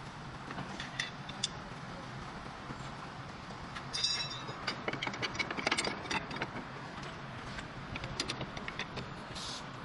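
Scattered metallic clicks and clanks over a steady low hum, with a ringing metal clink about four seconds in and a busier run of knocks just after.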